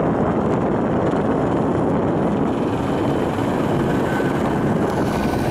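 Police helicopter circling low overhead: a steady, loud rotor thrum with a fast, even beating chop.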